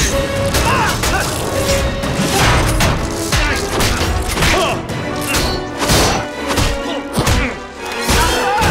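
Fight sound effects from an action film: repeated punches, hits and crashes, one after another, over loud music.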